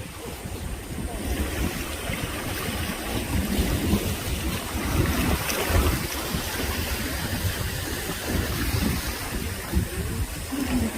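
Seawater sloshing and splashing around the microphone, with an uneven low rumble.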